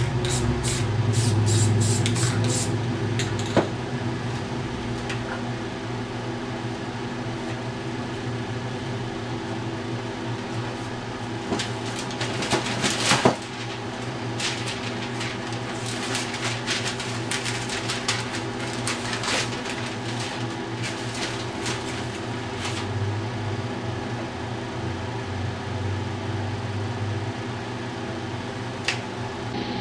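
A steady mechanical hum, with runs of quick clicks and taps about a second in and again in the middle, and a single click near the end.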